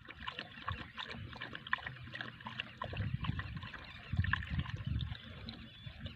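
Thin stream of water trickling and dripping from the spout of a miniature DIY hand pump into a small clay dish, a steady run of little splashes.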